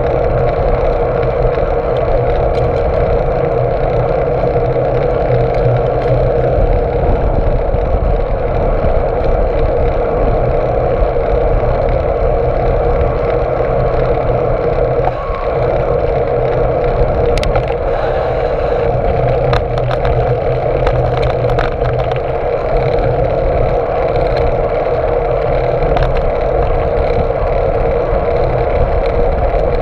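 Steady wind and tyre noise from a moving bicycle, heard through a camera mounted on the handlebar stem. A few sharp clicks and knocks come about two-thirds of the way through.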